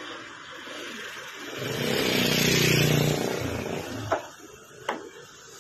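A motor vehicle drives past, its engine sound swelling and fading over about two seconds. Near the end come two sharp clicks less than a second apart.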